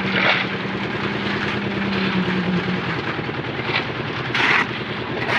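Concrete mixer's engine running steadily on a roof-casting site. Short rushing bursts come about a quarter second in, again about four and a half seconds in, and at the end.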